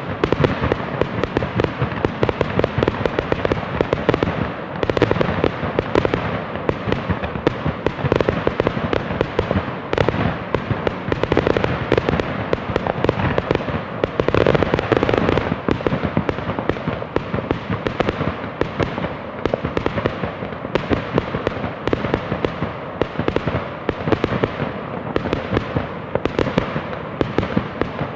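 Fireworks going off in rapid succession: a dense, unbroken stream of bangs and crackling with no pause.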